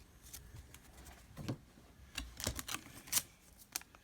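Trading cards being handled and slid past one another: a few faint, scattered flicks and rubs of card stock.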